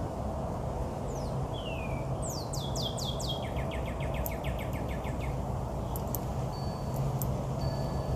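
Songbirds calling: a couple of falling whistles, then a fast run of quick repeated notes a few seconds in, with a few high chips and a held thin note near the end, over a steady low background noise.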